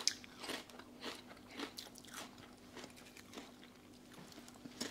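Pickled-onion-flavoured potato crisps being crunched and chewed in the mouth: faint, irregular crunches, a few a second.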